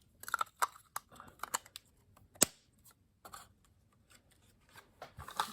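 Scattered light clicks, taps and scrapes of small objects being handled, with one sharp tap about two and a half seconds in.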